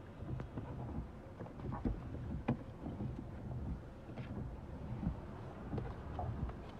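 Inside a car driving through heavy rain: the low rumble of the moving car and rain on the windscreen, with scattered knocks and taps.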